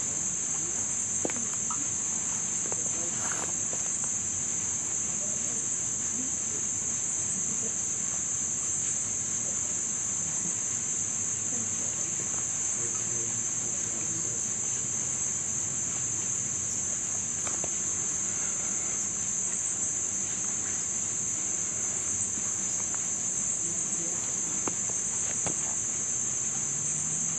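Steady high-pitched chorus of insects such as crickets, with a few faint ticks here and there.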